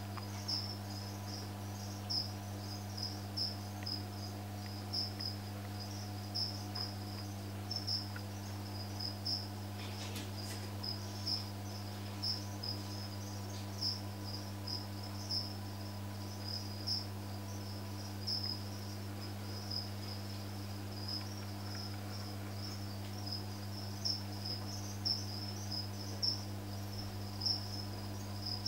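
A cricket chirping: short, high chirps repeating about once a second, over a steady low hum.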